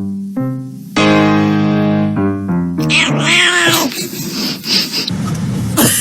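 A short tune of held musical notes stepping up and down. About three seconds in, a cat meows a few times, each call rising and falling in pitch. Near the end there is a sharp click over a hiss.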